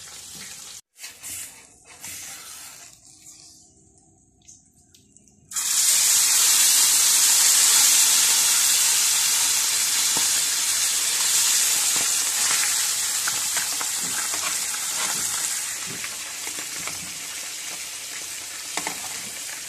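Spice-coated fish frying in hot oil in a pan: a loud, steady sizzle that cuts in suddenly about five seconds in after a quieter stretch, easing a little near the end.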